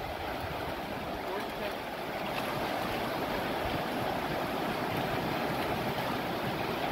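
River rapids rushing steadily over rocks, a constant whitewater roar.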